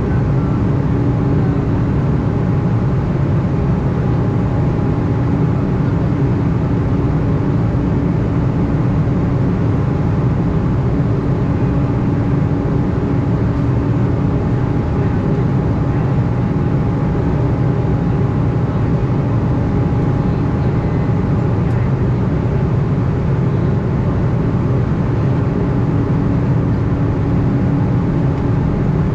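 Steady cabin noise inside an Embraer E190 in flight: its General Electric CF34 turbofans and the airflow make an even, deep rush with a steady low hum.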